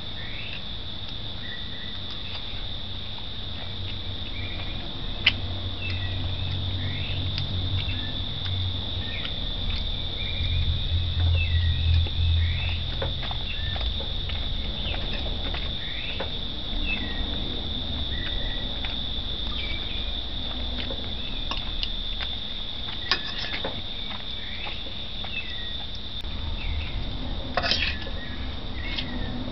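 Crickets trilling steadily and high-pitched, with many short chirping calls over them, and a few clinks of a metal fork against the plate, the sharpest about five seconds in and near the end. A low rumble swells briefly near the middle.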